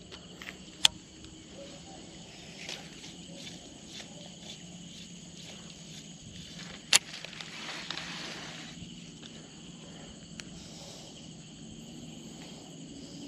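Quiet outdoor ambience with a faint steady drone of insects, broken by a few sharp clicks, the loudest about seven seconds in.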